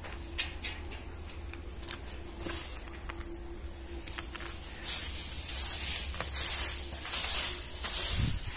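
Footsteps scuffing on a gritty floor, a few soft clicks at first and then hissy scuffs about once a second in the second half, over a faint steady hum.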